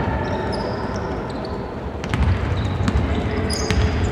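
Basketball being dribbled on a hardwood gym floor, repeated bounces with a few sharper impacts in the second half, ringing in a large hall.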